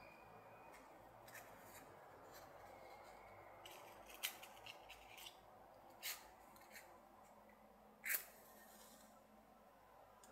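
Small taps and clicks of a matchbox being handled, then a wooden match struck once about eight seconds in, catching with a short hiss.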